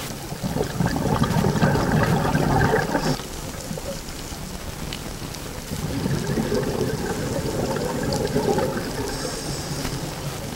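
Scuba regulator exhaust bubbles rushing past the underwater camera as the diver exhales, twice, each breath out lasting about three seconds, with quiet underwater hiss between them as the diver breathes in.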